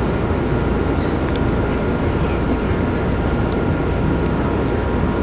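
MBTA Blue Line Type 4 subway car running along the track, heard from inside the car: a steady low rumble with a faint steady whine above it and a few light clicks.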